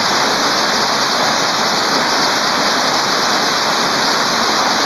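Heavy rain falling with hail: a dense, steady rushing noise that holds even throughout.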